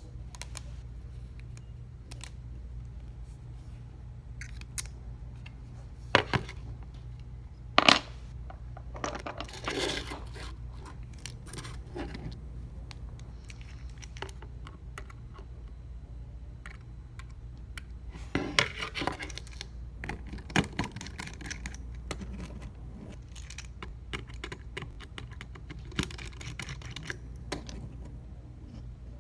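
Small repair tools and parts clicking, tapping and scraping against an iPhone 6s and the work surface while the phone is opened, a few sharper clicks standing out, over a steady low hum.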